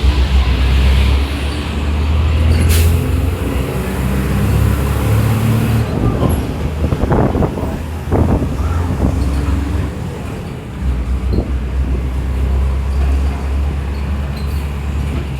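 Mercedes-Benz OF-1721 bus's diesel engine running with a steady low drone. About three seconds in, a hiss of compressed air lasts about three seconds. A few sharp rattles follow, and the engine eases off briefly around ten seconds before picking back up.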